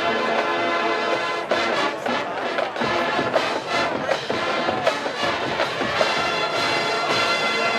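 Full college marching band playing: massed brass (trumpets and trombones) holding sustained chords over a steady drumline beat.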